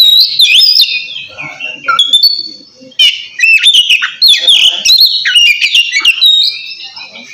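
Oriental magpie-robin (kacer) singing a loud 'ngeplong' song of clear whistles, with quick up-and-down slurs and trills. It comes in two bursts with a short lull about two seconds in.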